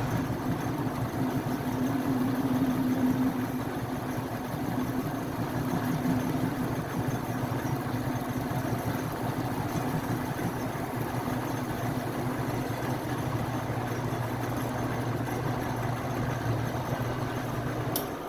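Metal lathe running with a steady hum while a cutting tool trims the aluminum end of an electric motor's rotor. A sharp click comes near the end.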